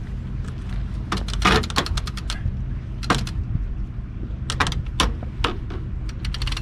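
Sharp clicks in short irregular runs from the sailboat furler's ratchet ('clicker') being worked to set the furler's tension, over a steady low rumble.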